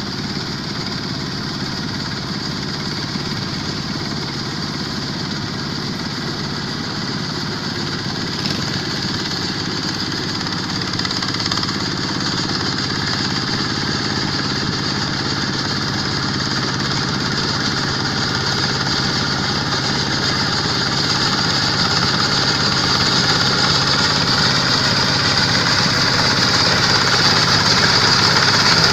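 Kubota 140 hp diesel engine of a Quick H-140R combine harvester running steadily, growing gradually louder, with a rising high hiss toward the end.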